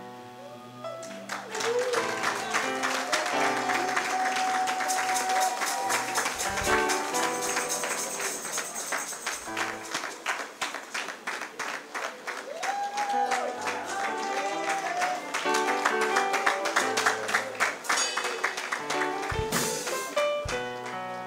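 Church praise music with a steady beat and a voice singing over it, and the congregation clapping along in rhythm from about two seconds in.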